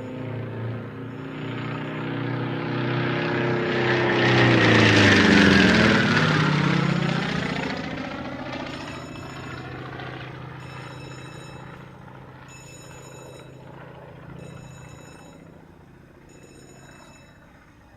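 Propeller-driven aircraft flying past: its engine note glides down in pitch as it passes, loudest about five seconds in, then fades into the distance.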